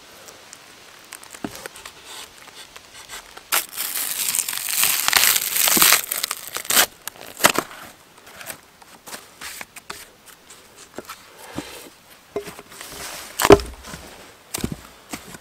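Birch bark tearing as it is peeled off a log in one long rip of about two seconds, followed by crackling and rustling as the stiff bark sheet is handled. A sharp knock near the end is the loudest sound.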